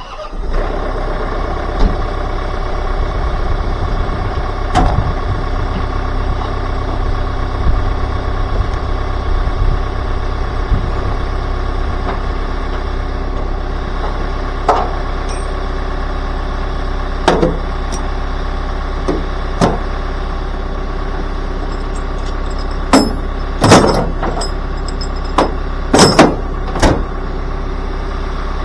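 Engine running steadily, with several sharp knocks and clanks, most of them bunched together near the end.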